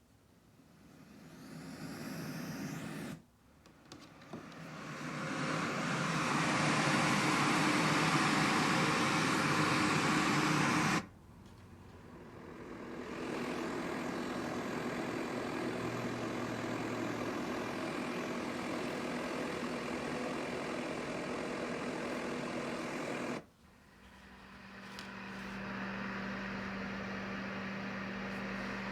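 Letsfit TP1 sleep sound machine playing a series of steady white-noise-type sounds. It switches sound three times, about 3, 11 and 23 seconds in: each time the sound cuts out and a new one fades in. The loudest is a bright hiss between about 4 and 11 seconds, and the last has a steady low hum under it.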